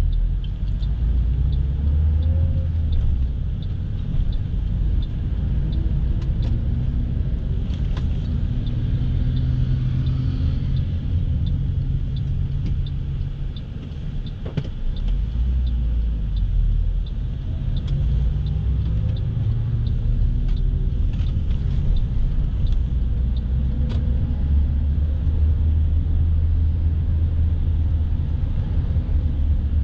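Inside a moving vehicle's cabin: engine and road noise make a steady low rumble, and the engine note rises and falls as the vehicle speeds up and slows in traffic. A faint, light ticking repeats a few times a second through the first half.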